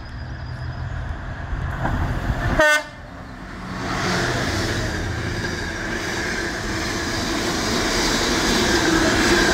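A Class 66 diesel freight locomotive, with its two-stroke V12 engine, rumbling louder as it approaches and passes. It gives a brief horn blast about two and a half seconds in. Then the empty container flat wagons clatter past, growing louder toward the end.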